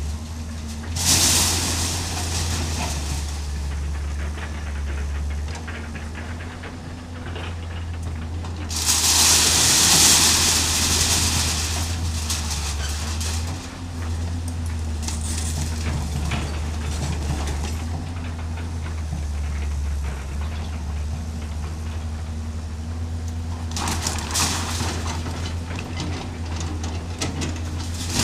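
Hydraulic excavator's diesel engine running steadily while it breaks up a house, with spells of crashing and scraping of corrugated metal sheets and timber debris: one about a second in, the longest and loudest about ten seconds in, and another near the end.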